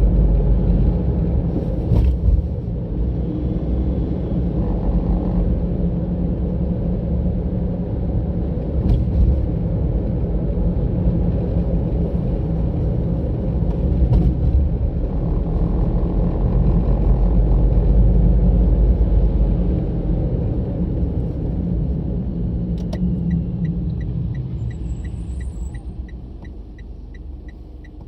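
Car road and engine rumble heard from inside a moving car. It dies down over the last few seconds as the car slows. Near the end a quick, regular ticking of about three ticks a second starts.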